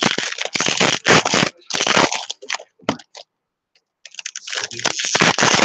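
Foil wrapper of a Topps baseball card pack crinkling as it is torn open and handled, in two spells with a pause of about a second near the middle.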